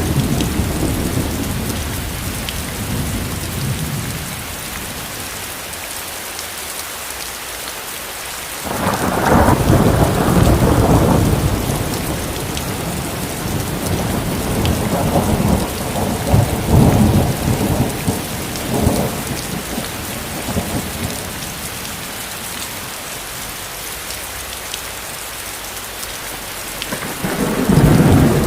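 Steady rain hissing on a surface, with thunder rolling over it: a loud peal about nine seconds in that rumbles on for a few seconds, lighter rumbles after it, and another peal building near the end.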